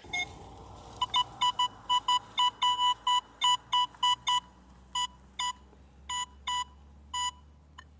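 Metal detector sounding a target: a run of short, same-pitched beeps in quick succession, then in spaced pairs as the coil is swept back and forth over a shallow buried metal object.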